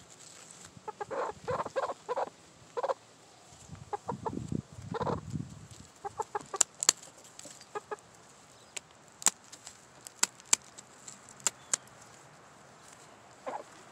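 A hen clucking in short calls in the first half. Then, from about six seconds in, a series of sharp scissor snips as her flight feathers are cut during wing clipping.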